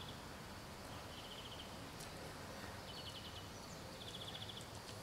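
Quiet outdoor background with faint, high chirping trills, each a quick run of clicks about half a second long, repeating every second or so.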